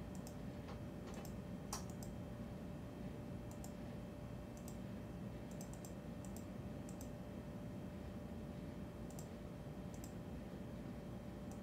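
Faint, scattered clicks at a computer, single clicks and small quick runs of them every second or so, as a photo is searched for and enlarged on screen. A faint steady hum runs underneath.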